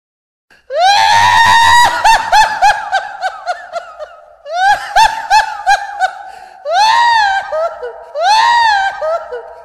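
Very high-pitched, squealing laughter in three loud bursts. It starts less than a second in with a held note breaking into quick 'ha-ha' pulses, bursts again about four and a half seconds in, and ends with two long rise-and-fall wails.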